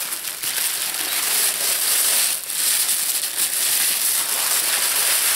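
Packing paper rustling and crinkling loudly as a purse is unwrapped and pulled out of it, with a brief lull about halfway through.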